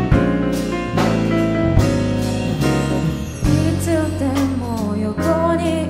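Pop song with a band backing of drum kit, bass and keyboard or guitar chords. About halfway in, a wavering, bending melody line comes in over it.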